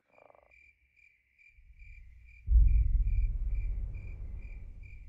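Crickets chirping steadily, about two chirps a second. About two and a half seconds in, a deep low rumble comes in suddenly and slowly fades under them.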